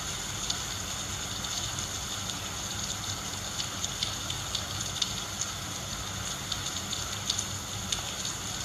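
Hurricane rain falling steadily: a constant hiss with many small sharp ticks of drops striking nearby surfaces, over a low wind rumble.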